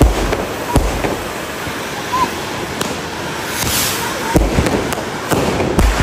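Fireworks going off: a ground fountain firework hissing steadily as it sprays sparks, broken by sharp bangs from firecrackers and aerial shots roughly once a second.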